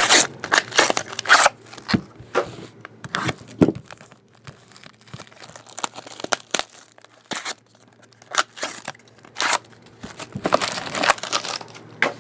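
Trading-card pack wrappers being torn open and crinkled: irregular short rips and rustles, busiest near the start and again about ten seconds in.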